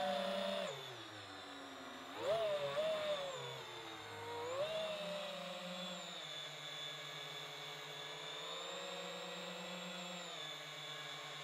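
FPV quadcopter's electric motors and propellers whining, the pitch and level jumping up with throttle bursts at the start and again about two seconds in, a smaller rise near five seconds, then settling into a steadier hum.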